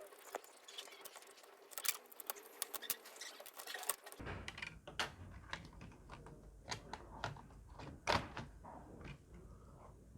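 Scattered light plastic clicks and taps from a laptop being handled and taken apart, irregular throughout, with a few sharper knocks in the second half.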